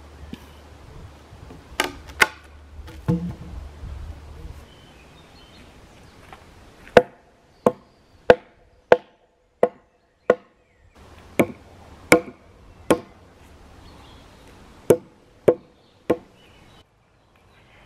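Axe blows on wood: a few knocks about two seconds in, then about a dozen sharp strikes in three runs, roughly two-thirds of a second apart, each with a short ringing note.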